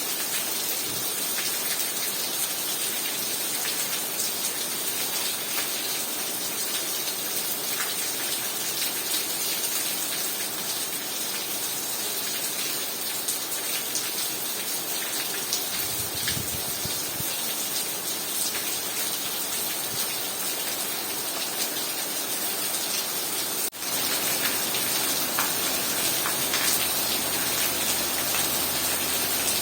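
Heavy rain falling: a dense, steady hiss with many small drop ticks. There is a brief break about three-quarters of the way through, after which a faint low hum sits under the rain.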